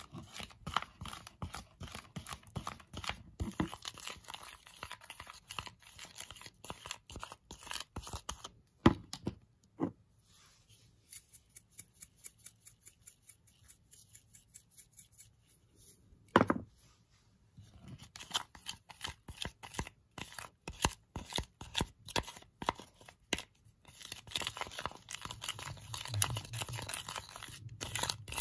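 A plastic spoon stirs and folds sticky toothpaste-and-salt slime in a glass bowl, giving a dense run of wet clicks and crackles. A few louder knocks come about 9, 10 and 16 seconds in, and the clicking thins out for a few seconds in the middle.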